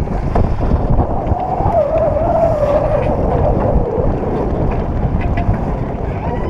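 Wind buffeting the microphone aboard a sailing boat under way, a heavy gusty rumble. A wavering tone sounds over it for about two seconds in the middle.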